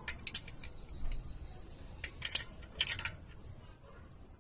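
Light metallic clicks and taps of a wrench and feeler gauge on an engine's rocker-arm valve adjusters during a valve clearance (tappet) adjustment: a few quick clicks at the start, a sharp one a couple of seconds in, and a short cluster about a second later.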